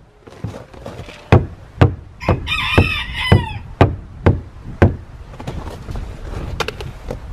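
Boot kicks thudding against the wooden door of an ice-frozen chicken coop, about two a second, with a pair of kicks near the end; the door is frozen shut after rain and a hard overnight freeze. A rooster crows inside the coop about two and a half seconds in.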